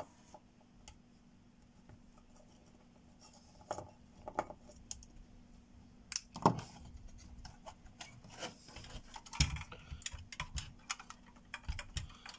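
Small clicks and scrapes of a screwdriver working screws on the back of a GeForce GTX 280 graphics card, then the card and its metal and plastic parts being handled on a bench. There are louder knocks about six and nine seconds in, and a run of rattling clicks near the end.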